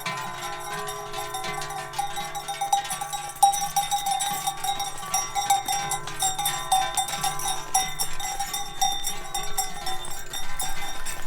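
Many cowbells clanging and ringing together, dense clanks over several steady ringing tones, as a herd of bell-wearing cows is driven along.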